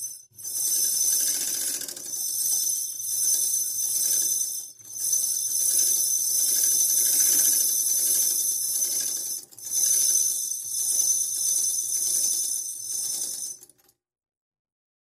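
Bobbin winder on a Sheel sewing machine spinning fast, filling a bobbin with thread with a steady high-pitched whir. It dips briefly twice and stops abruptly near the end when the bobbin is full.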